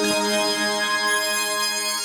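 Behringer Wave wavetable synthesizer holding a sustained, organ-like chord with a bright tone. The chord changes just after the start.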